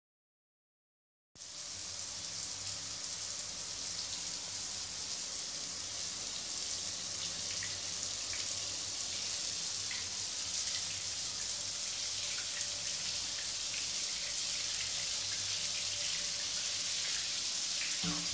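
Rain falling steadily: a dense, even hiss with faint scattered drop ticks, starting abruptly about a second and a half in after silence.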